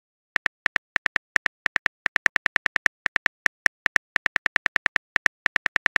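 Phone keyboard click sounds: a quick, slightly uneven run of short ticks, several a second, one for each keystroke as a text message is typed.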